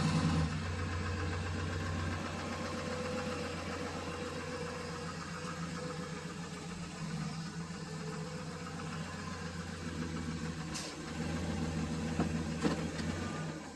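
Vehicle engine running just after being started, louder for the first couple of seconds and then idling steadily while the vehicle is moved over a short way, then switched off about thirteen seconds in.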